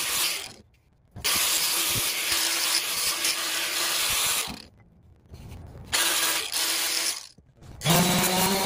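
Angle grinder with a sanding disc abrading a wooden ipe axe handle, in three runs separated by two short quiet gaps. Near the end a random orbital sander takes over with a steadier, lower hum.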